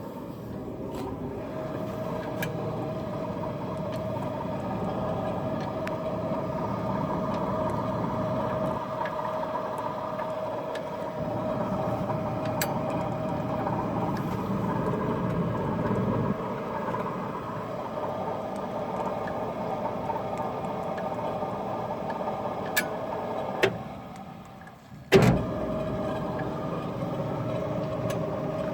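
Old Frista washing machine running, its motor and drive giving a steady mechanical hum with a low rumble. About 24 seconds in the hum briefly dies away, then a sharp knock comes and it starts up again.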